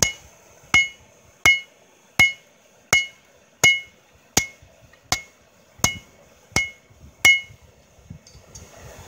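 Hand hammer forging hot steel on an anvil: eleven steady blows about three-quarters of a second apart, each with a short metallic ring. The blows stop about seven seconds in.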